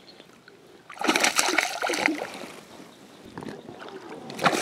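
Hooked bass thrashing and splashing at the water's surface, with a burst of splashing about a second in and another near the end.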